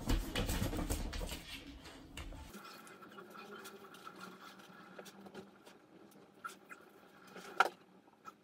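Bull terrier shaking and thrashing a plush toy, its fabric rustling and paws scuffling on a wooden floor for the first couple of seconds. Then quieter rustling and small clicks as she mouths the toy, with one sharp click near the end.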